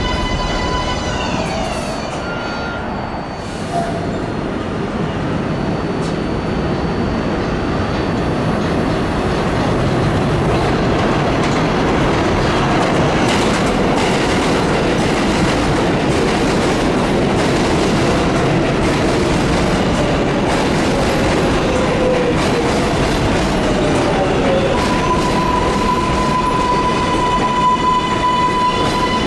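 R188 subway train running on the track with a steady rumble and clatter of wheels. The high whine of its motors falls in pitch at the start and rises again near the end, and a faint wheel squeal slides in pitch in the middle.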